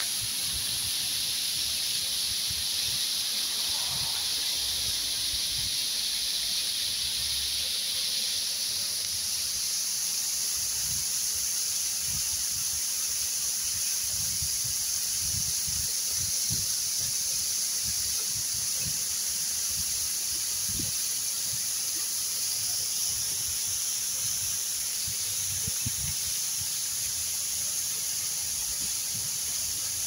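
Waterfall water pouring down a rock face and splashing into a shallow pool: a steady high hiss, a little thinner from about nine seconds in, with occasional low bumps.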